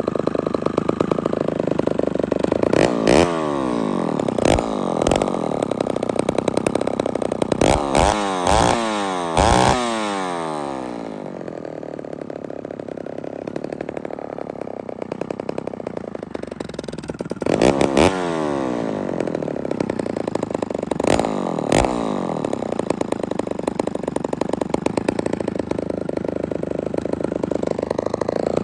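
Ported Homelite Super XL chainsaw's two-stroke engine running with no bar or chain fitted, revved up in short blips again and again and dropping back to idle each time, with a steadier idle stretch in the middle. It runs rather high, which the owner puts down to the crank seals needing replacement.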